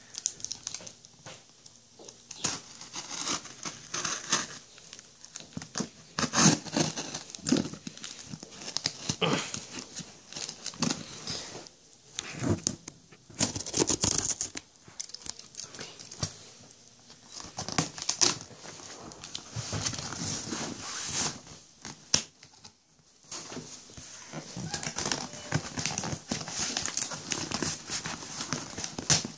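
Packing tape being cut and torn off a cardboard shipping box, with the cardboard flaps scraping and rustling as they are pried open, in irregular bursts with short pauses.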